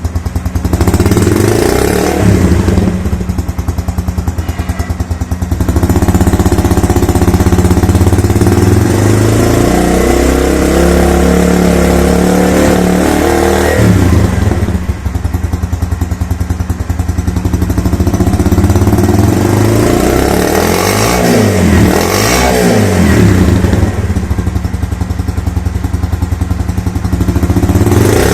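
Yamaha YBR 125G's single-cylinder four-stroke engine, warmed up after a cold start, idling and being revved by hand on the throttle. There is a short blip about a second in, then revs are held high for several seconds before dropping back. A few quick rev-ups and drops come later, with another blip near the end.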